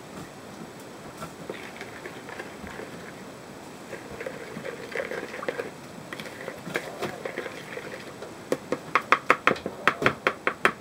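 Plastic spoon stirring a liquid marinade in a plastic bowl with soft swishing and scraping. Near the end it turns into a quick run of sharp clicks, about five or six a second, as the spoon knocks against the bowl.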